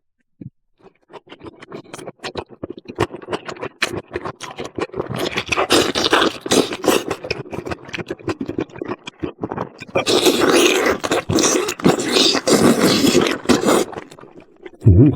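Close-miked eating: chewing and crunching food with many small wet clicks, building after a brief quiet start and loudest in the last few seconds, ending with a low thump.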